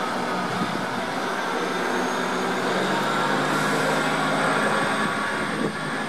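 Freight train wagons rolling over the rails with a steady rumbling run, a faint high wheel squeal on the curved track setting in about two seconds in.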